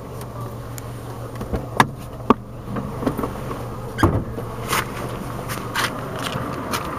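The four-cylinder engine of a 2007 Chrysler PT Cruiser idling steadily, heard from inside the cabin as a low hum. Scattered light clicks and knocks sound over it, a few of them sharp.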